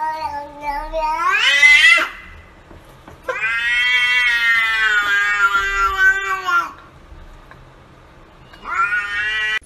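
Domestic cat yowling in long, drawn-out meows. The first rises in pitch and breaks off about two seconds in, a longer steady one of about three seconds follows in the middle, and a third starts near the end.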